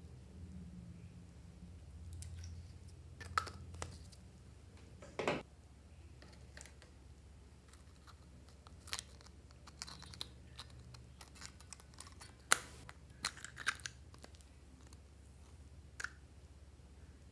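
Scattered clicks and taps of lipstick cases being handled, uncapped and twisted, with a faint hum underneath; the sharpest click comes about twelve and a half seconds in.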